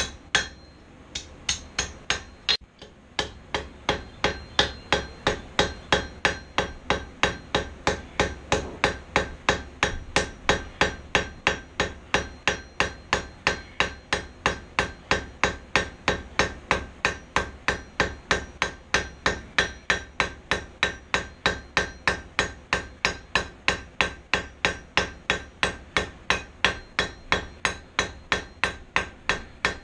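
Hand hammer striking a hot steel bar on an anvil in a steady rhythm of about three blows a second, each blow with a short metallic ring. This is the square bar being hammered round after its corners were knocked off. A few spaced blows come first, and then the rhythm settles.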